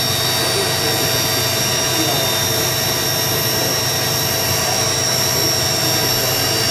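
Vector-drive spindle of a 2010 Haas VF-6/40 vertical CNC machining center running at a steady speed: a steady machine hum with high-pitched whine tones held level.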